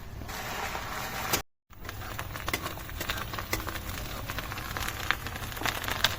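Crushed onion sizzling and crackling as it fries in hot mustard oil in a karahi. The sound cuts out for a moment about a second and a half in, then the crackling carries on.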